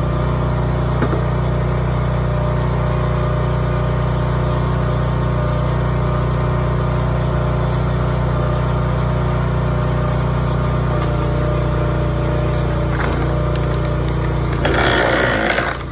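Small gas engine of a log splitter running steadily. About a second before the end, a loud, harsh crackling burst as wood splits under the wedge.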